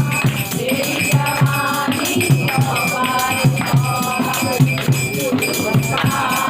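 Kirtan music: voices singing over a steady drum beat, about two to three beats a second, with jingling percussion.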